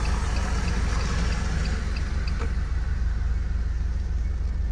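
Rain falling on a car's roof and windshield over a steady low engine rumble, heard inside the car's cabin, with a few small drop ticks early on.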